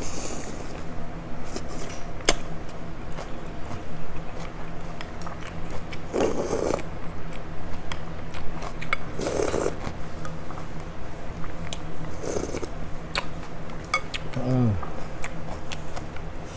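Close-up eating sounds of a bowl of pho: three loud slurps of noodles and broth a few seconds apart, with chewing and small clicks of wooden chopsticks and a ceramic soup spoon against the bowl. Near the end a short 'mm' from the eater falls in pitch, over a steady low hum.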